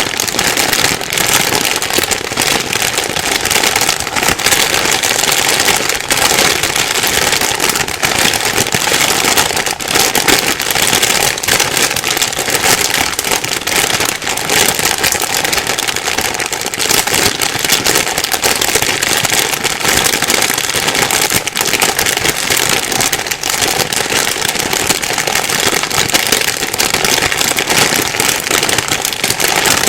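Plastic bag being rustled and crumpled without pause: a dense, steady crinkling crackle full of tiny clicks.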